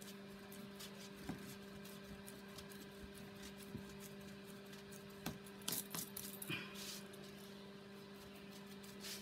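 Cardboard pieces being handled and slid over paper on a cutting mat: faint scattered taps, with a short burst of rustling and scraping a little past halfway, over a steady low hum.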